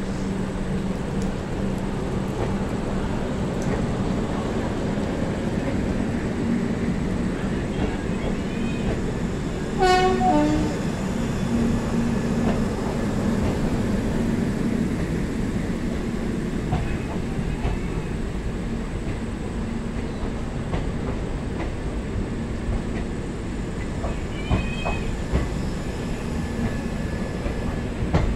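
Passenger coaches rolling steadily past as a train departs, with wheels clicking over the rail joints and a continuous rumble. A short horn blast sounds about ten seconds in.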